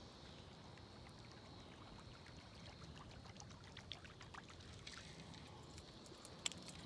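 Near silence at a pond's edge: a faint insect trill at first, then scattered small drips and ticks of water, with one sharper click near the end.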